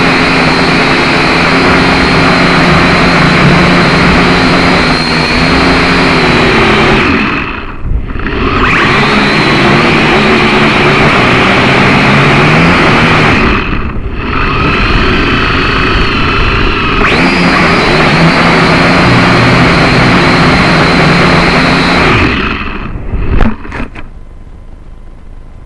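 Syma X5C quadcopter's small electric motors and propellers whirring under heavy wind noise, the pitch shifting as the throttle changes. The sound drops out briefly twice, then fades out about 23 seconds in with a few clicks.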